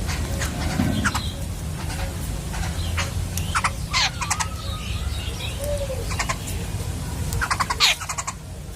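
Birds calling: short chirps, quick runs of rapid notes and a few gliding notes scattered throughout, over a steady low rumble.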